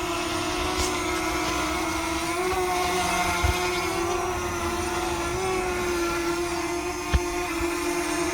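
DJI Mini 2 quadcopter flying close by, its propellers giving a steady buzzing whine that wavers slightly in pitch. A few brief low thumps of wind on the microphone, around the middle and near the end.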